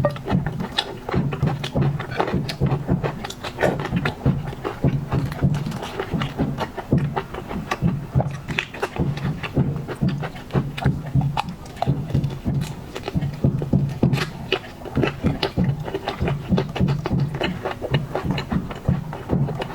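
Close-miked mukbang eating sounds: wet chewing, mouth smacks and crisp clicks of seafood being bitten and chewed, many per second in an uneven rhythm.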